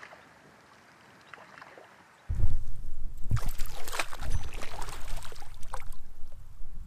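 Faint stream sound, then from about two seconds in a hooked trout thrashing and splashing at the surface close by, over loud wind rumble on the microphone.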